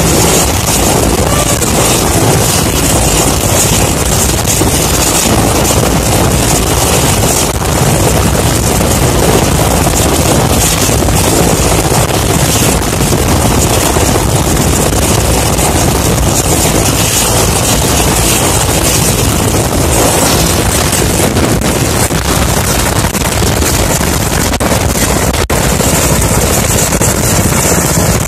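Mil Mi-8 helicopter's twin turboshaft engines and spinning main and tail rotors running loud and steady on the ground, ready for take-off.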